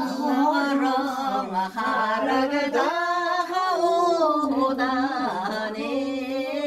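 A woman singing a slow melody, holding long notes with brief pauses for breath.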